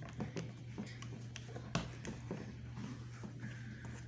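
Plastic building bricks being handled and pressed together: scattered small clicks and taps, one sharper click a little under two seconds in, over a steady low hum.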